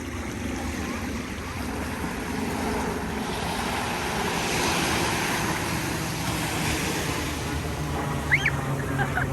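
Ocean surf washing in at the shoreline, a wave swelling and breaking about halfway through. A brief high call sounds near the end.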